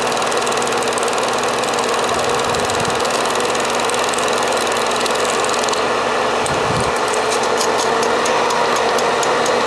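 Film projector running with a steady mechanical whirr and clatter. A rapid ticking, about five clicks a second, joins in about six seconds in.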